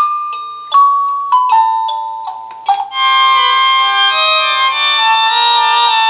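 Wireless doorbell receiver playing its electronic chime tunes through its small speaker: a run of single bell-like notes, each dying away, then about three seconds in a new tune of steady held notes starts.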